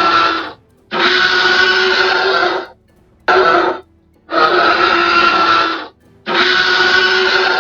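Background music playing in repeated phrases of about one and a half to two seconds, each phrase holding steady notes, with short breaks between them.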